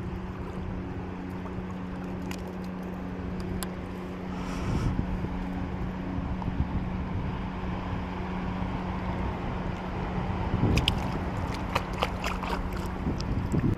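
Wind and water noise with a steady low hum throughout. A louder stretch comes about five seconds in, and a cluster of sharp clicks about eleven seconds in.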